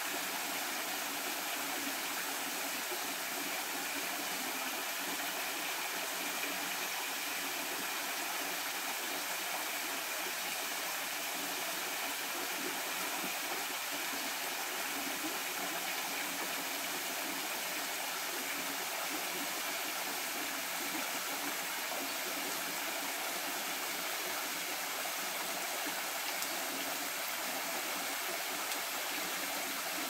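Small waterfall: a thin cascade of water falling down a rock face, making a steady, even rushing hiss.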